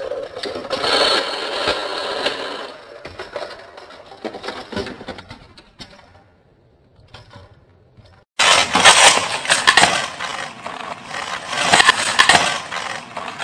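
Plastic toy car and track playset clattering and rattling as they are handled, a dense run of small clicks and scrapes. It fades almost to silence midway, then comes back suddenly and loudly about eight seconds in.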